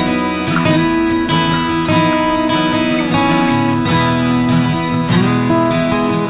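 Background music of a strummed acoustic guitar, chords struck at a steady rhythm.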